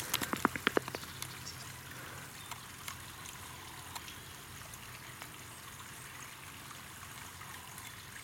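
Steady, gentle rush of a small trickling stream, with a few short clicks in the first second.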